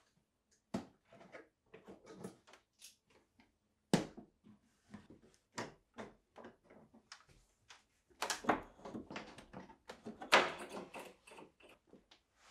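Wooden boards and bar clamps being handled on a plywood panel: irregular knocks, clicks and rattles of wood on wood and clamp hardware, with louder knocks about four, eight and ten seconds in.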